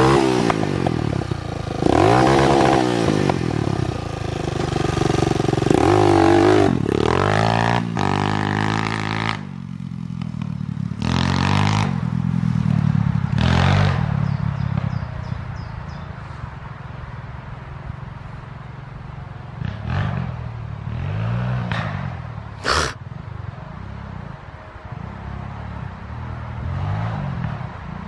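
A 200cc pitbike engine, freshly fitted with a new cylinder, revving up and down again and again as the bike rides off across grass. The revs swell hardest in the first third, then run lower with a few more rises. A short sharp clack comes about two-thirds of the way through.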